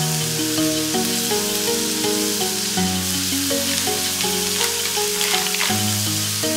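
Background music with a simple melody, over a steady sizzle from an electric tabletop grill and hot pot with chicken on the hot grill plate and noodles in the steaming broth.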